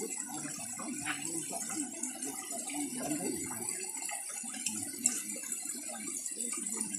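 Indistinct low voices under a steady high hiss, with one short click about five seconds in.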